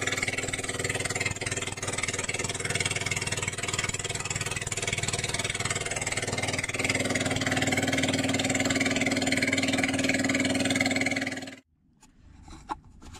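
Small boat's motor running steadily, getting a little louder from about seven seconds in, then cutting off abruptly near the end, leaving only a few faint clicks.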